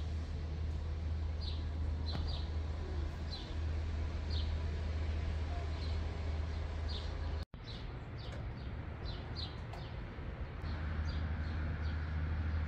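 Small birds chirping outdoors: short high chirps repeating every second or so over a steady low rumble. The sound breaks off for a moment about seven seconds in.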